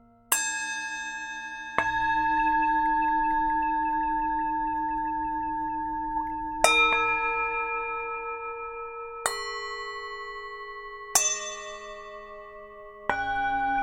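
Tibetan singing bowls struck one after another, six strikes at several different pitches. Each strike rings on with a long, gently wavering tone that overlaps the next.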